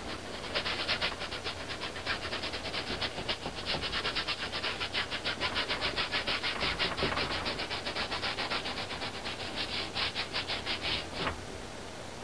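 Paintbrush scrubbing acrylic paint onto a canvas in quick back-and-forth strokes, several a second, stopping near the end.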